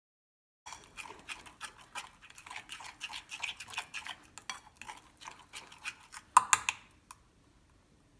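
A metal spoon stirring thick marinade in a ceramic bowl, clinking and scraping against the sides in quick, irregular strokes. It starts after a moment of silence, a louder knock comes near the end, and then it stops.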